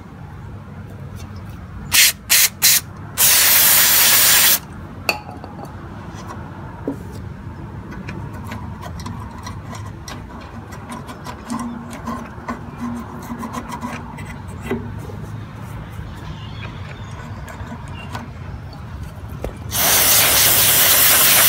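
Aerosol carburetor cleaner sprayed through a straw onto a lawnmower carburetor's linkage: three short hisses about two seconds in, then a longer hiss of about a second and a half, and another long hiss near the end.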